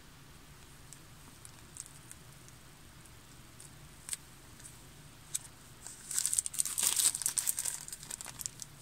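Packaging of a packet of crystals crinkling as it is handled: a few faint light clicks at first, then a dense couple of seconds of crinkling about six seconds in.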